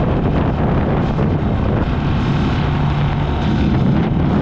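Gatoma 200 motorcycle engine running steadily at riding speed, with wind buffeting the microphone.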